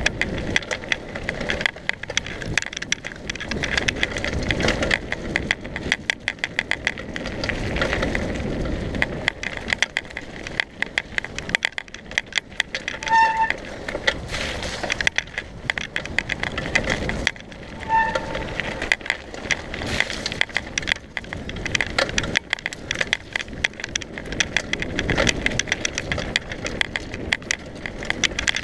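Mountain bike riding fast down a dirt and gravel trail: tyres crunching over the surface and the bike rattling and clicking over the bumps, with low rumbles that swell and fade. Two brief high squeaks come about 13 and 18 seconds in.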